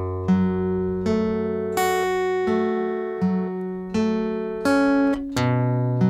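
Acoustic guitar fingerpicked slowly, one note at a time about every three-quarters of a second, each string left ringing. The notes follow an arpeggio pattern across the bass, 4th, 3rd, 1st, 3rd, 4th, 3rd and 2nd strings, and a deeper bass note starts the pattern again about five seconds in.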